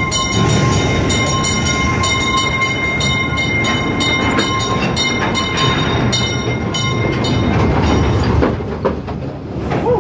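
Amusement-park mine ride train rolling along its track, a steady rumble of wheels and cars with a faint steady whine above it, easing slightly near the end.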